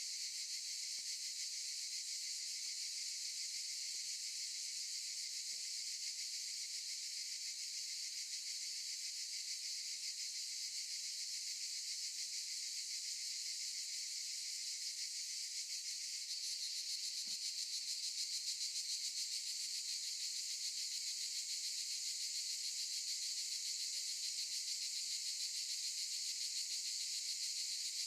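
Cicadas singing in a dense, steady chorus: a high, continuous buzz that grows a little louder about halfway through.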